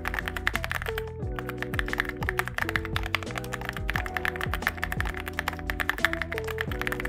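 Rapid typing on a mechanical keyboard fitted with CIDOO Matte linear switches, which have a nylon housing and a POM stem: a dense stream of key clacks, with background music.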